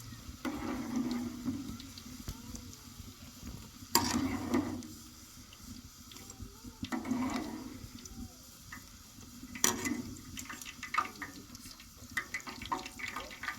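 Khajor dough frying in hot oil, sizzling steadily, with a utensil stirring and scraping in the pot several times and light clinks near the end.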